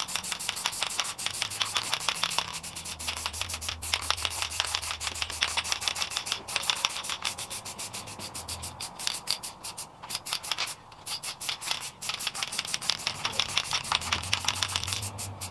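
Krylon spray paint can being shaken steadily, its mixing ball rattling in quick, evenly repeated clicks, with a few brief pauses.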